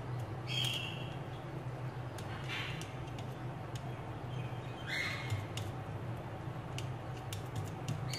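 Metal cookie cutter being pressed and worked against a stainless steel bowl as chicken mince is packed into it by hand: faint clicks and a few short squeaks, over a steady low hum.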